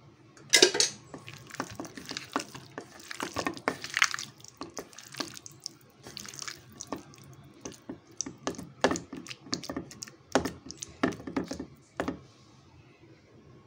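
A bare hand squishing and mixing chunks of boneless chicken in a thick, oily yogurt-and-spice marinade in a steel bowl: irregular wet squelches and smacks that stop near the end.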